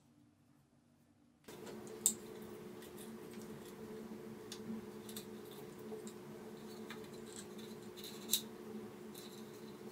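Handling clicks from a Makita HS301D cordless circular saw as its bevel angle adjustment is worked: a sharp click about two seconds in and a louder one near the end, with a few lighter ticks between. Under them is a steady low hum, which starts after a second and a half of near silence.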